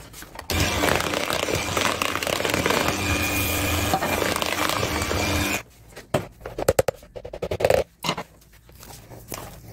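Chocolate sprinkles pouring from a plastic cup into a bowl of whipped mascarpone cream, a steady rattling hiss that lasts about five seconds and stops abruptly. A few sharp clicks and knocks follow as the cup is emptied.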